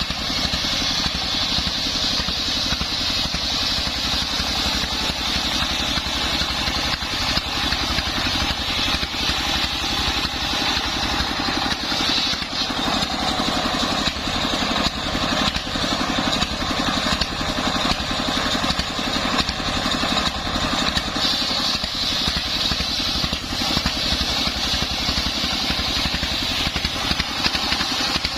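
Homemade engine-driven circular saw running steadily while sawing sengon timber, the engine's rapid even pulse under a high blade whine that eases off twice and comes back.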